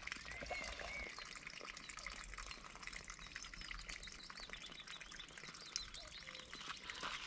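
Faint birdsong: a few short chirps, over a steady outdoor hiss.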